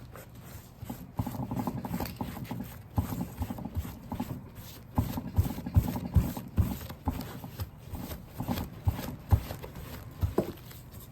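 Horsehair brush rubbing over a handbag's alligator leather in uneven strokes, working polish into the grooves of the skin, with scattered soft knocks.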